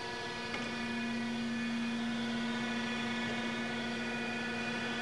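Heald 261 rotary surface grinder running with its grinding-wheel spindle turning: a steady electric hum with one strong tone, with a faint click about half a second in.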